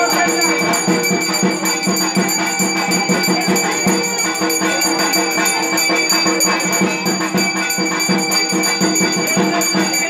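Music: a few steady held tones, like a drone, under dense, quick shaken percussion.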